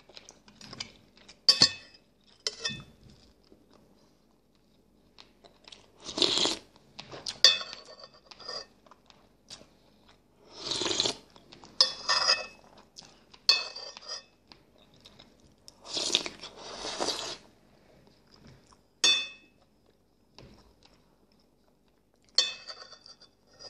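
A person eating chicken close to the microphone: chewing and mouth noises in irregular loud bursts a few seconds apart, with short sharp clinks now and then.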